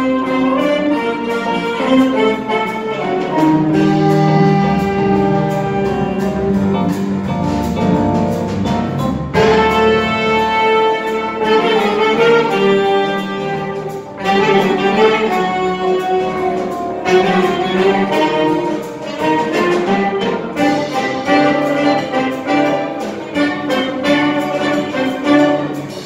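Latin jazz band playing live: a section of saxophones in ensemble over piano and upright bass.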